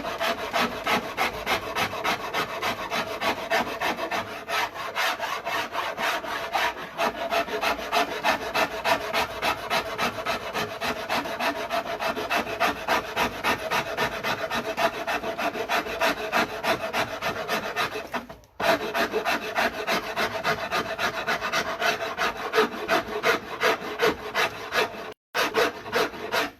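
Hand rasp carving the wooden neck of a neck-through bass: steady, rhythmic back-and-forth filing strokes, breaking off briefly twice near the end.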